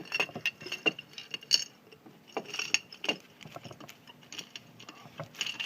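Small scraps of cast lead being picked through and handled, clinking and rattling against each other and a hard container in quick, irregular clicks.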